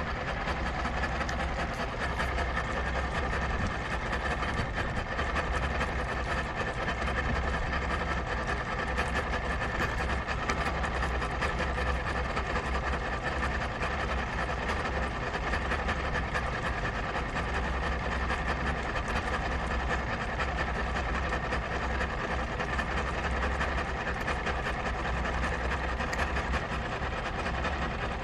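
Engine idling roughly but keeping running. It is a steady running sound whose low throb rises and falls in strength every few seconds.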